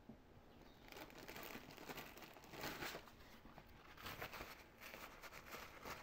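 Faint rustling and rubbing, starting about a second in and coming in several strokes: a multi-tool's dirty pliers being wiped clean.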